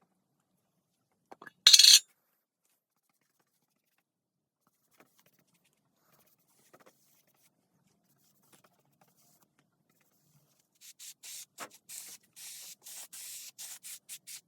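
A brief loud hiss about two seconds in, then a run of short rubbing strokes on a surface, about three a second, near the end.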